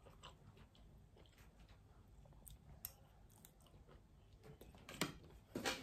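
Faint close-up chewing of a mouthful of creamy farfalle pasta, soft mouth clicks scattered through it, with a couple of sharper clicks near the end.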